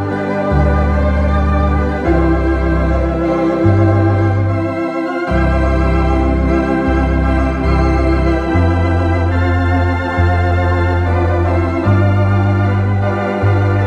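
Two-manual home electronic organ being played: sustained chords held over a low bass line whose notes change every second or two.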